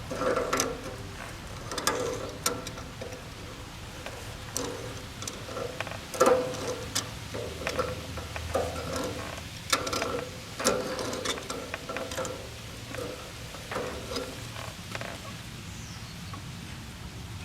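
Irregular metallic clanks and clinks of hand tools and parts on a tractor's rear brake assembly during disassembly, many knocks ringing briefly.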